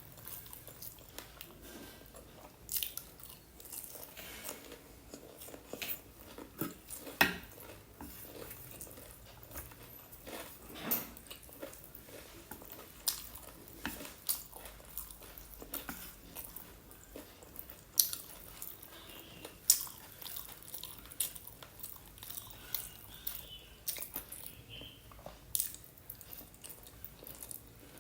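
A person eating close to the microphone: irregular biting and chewing, with sharp crisp crunches scattered through, from a meal of crispy fried chicken and mixed noodles.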